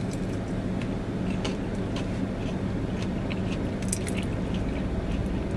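A person chewing and biting food with the mouth close to the microphone: small irregular clicks and crunches over a steady low hum.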